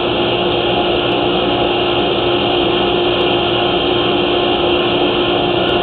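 Steady machine drone: an unchanging hiss with a constant hum, holding level throughout.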